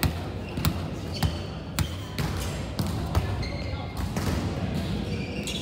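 Volleyballs being hit and bouncing on a hard court: a series of sharp slaps, about one every half second for the first two seconds, then more scattered, over distant chatter of players.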